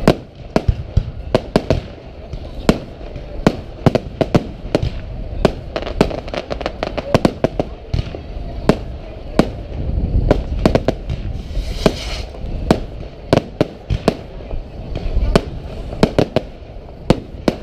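Fireworks display: aerial shells bursting in a rapid, irregular run of sharp bangs, one to three a second, with a short hissing crackle about twelve seconds in.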